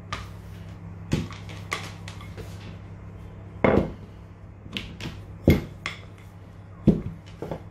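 Irregular knocks and taps as sheets of pastry dough and a wooden rolling pin are handled on a wooden worktop, over a steady low hum.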